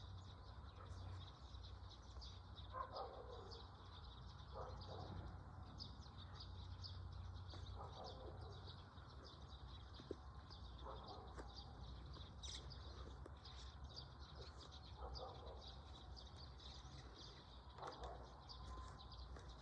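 Faint chorus of small birds chirping continuously, with a lower bird call repeated every few seconds, over a steady low hum.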